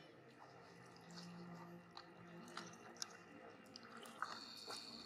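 Faint water sounds of macaques swimming and splashing in a stone pool, with scattered small clicks and drips.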